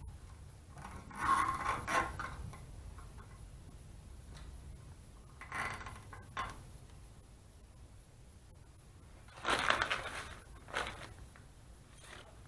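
Three short bursts of scraping and rubbing, about a second in, near the middle and near the end, over a faint low rumble.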